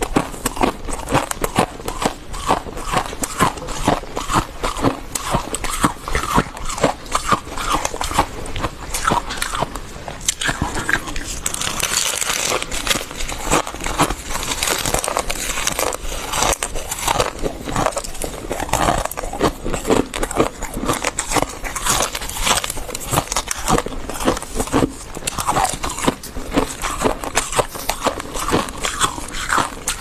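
Fluffy freezer frost being bitten and chewed, a steady run of crisp crackling crunches.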